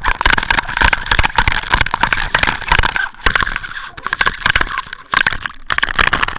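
Audio from an underwater camera housing being hauled up through seawater: dense crackling and knocking of water and line against the housing. A steady high whine runs behind it, dropping out about three seconds in and returning about two seconds later.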